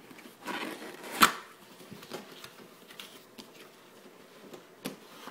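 Cardboard router box being handled and opened: a brushing, sliding rustle, one sharp click about a second in, then a few light taps and scrapes.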